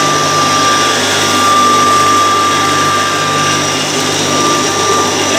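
A 3 HP, 2800 RPM high-speed pulverizer running at full speed with a steady high whine over a constant hum, grinding rice fed into its hopper through a fine sieve.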